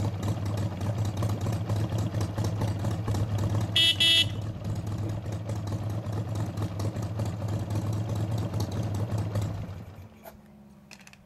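Harley-Davidson Sportster 1200S air-cooled V-twin idling with an uneven beat. A short horn toot sounds about four seconds in. The engine cuts off about ten seconds in.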